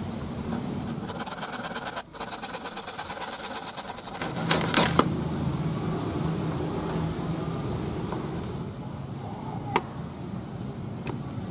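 Backsaw cutting a wooden peg flush with a board: a quick run of short rasping saw strokes, then a few loud sharp clicks about halfway. A single sharp knock comes near the end.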